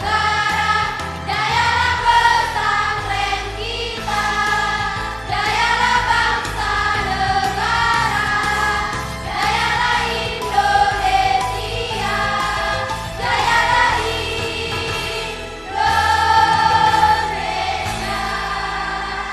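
Choir singing in unison with instrumental accompaniment, sustained low bass notes under the voices.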